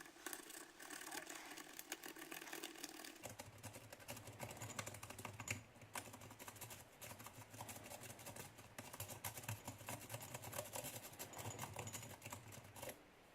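Lock pick and tension wrench working the pin stack of a challenge padlock: a dense, irregular run of small clicks and scratches as the pins are manipulated. A faint low hum joins about three seconds in.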